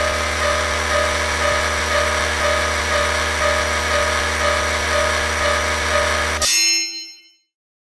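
Electronic level-crossing warning sound effect: a steady low hum under many steady tones, with one tone pulsing about twice a second. It cuts off suddenly near the end, leaving a brief ringing tail.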